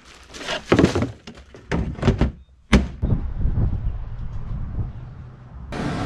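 A run of knocks and clattering handling sounds, then one sharp, loud thunk a little under three seconds in, followed by a quieter steady background.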